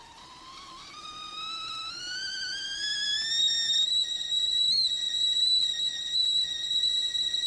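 Kettle whistling at the boil: the whistle rises in pitch and grows louder over the first few seconds, then settles into a steady, shrill high whistle.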